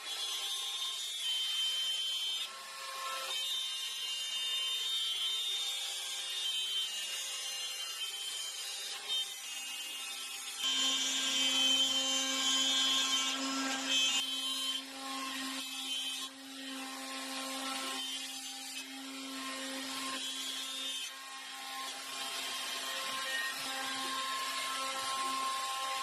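Wood-cutting CNC machine running, with a whine of motors that changes pitch in steps as the machine moves, over the hiss of a cutter in wood. About eleven seconds in, a low hum joins and the cutting grows louder and brighter for a few seconds.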